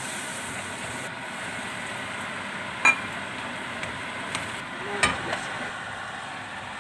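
Vegetables sizzling steadily as they are stir-fried in a pan, with the spatula clacking against the pan twice, sharply about three seconds in and again about five seconds in.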